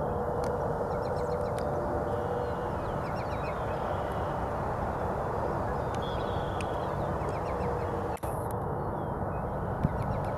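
Steady low rumble of airport noise, with faint bird calls chirping over it.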